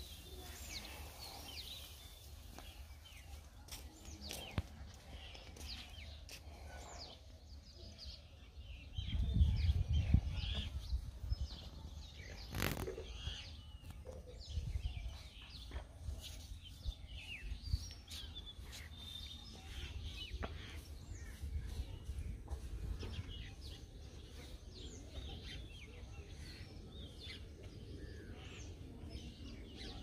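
Outdoor ambience of many small birds chirping faintly and intermittently. A low rumble on the microphone comes about nine seconds in and lasts a few seconds, and a single sharp click follows shortly after.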